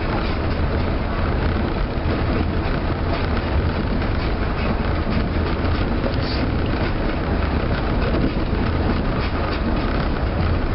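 Osaka New Tram rubber-tyred automated people mover running steadily along its elevated guideway, heard from inside the car: an even rumble of tyres and running gear with faint repeated clicks from the guideway.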